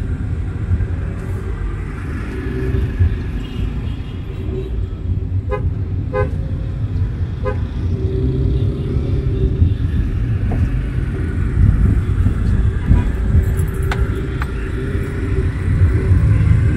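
Dense city traffic heard from inside a car: a steady low engine and road rumble, with three short car-horn toots about six to seven and a half seconds in.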